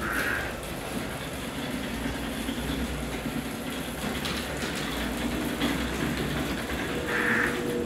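Tractor engine running with a steady low rumble, and a short higher-pitched sound about seven seconds in.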